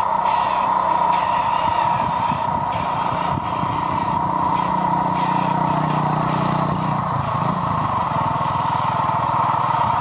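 Radio-controlled dump truck running under load. A steady high motor whine, with a lower engine-like hum that grows louder and shifts in pitch from about four to eight seconds in.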